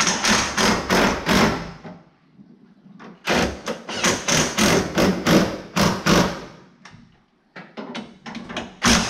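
Ratchet wrench tightening the mounting nuts of a brake master cylinder on the firewall: quick clicking strokes in three bursts with short pauses between.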